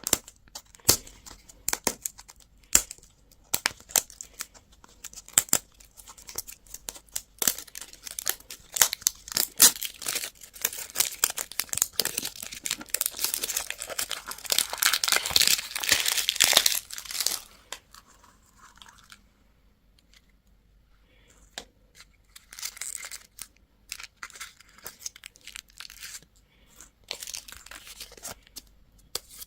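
Candy wrappers crinkling and being torn open, with many small clicks and rustles. The densest tearing comes in the middle, then a few seconds of pause, then more crinkling.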